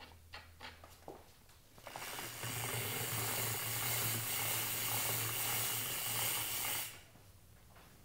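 Bicycle rear freehub ratcheting as the drivetrain spins: a few light clicks, then, from about two seconds in, a fast, steady buzz of pawl clicks lasting some five seconds that cuts off abruptly.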